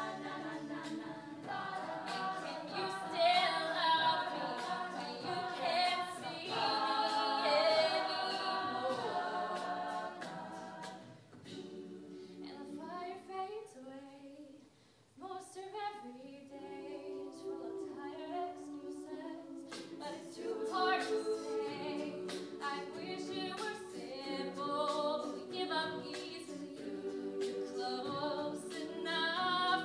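Women's a cappella group singing a pop song: a lead soloist on a microphone over backing voices. About a third of the way in the backing thins to a quieter passage with sliding lead notes, and the full group swells back in about two-thirds through.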